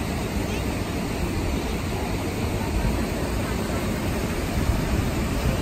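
Steady rush of flowing river water with a low rumble underneath, even throughout and with no distinct splashes.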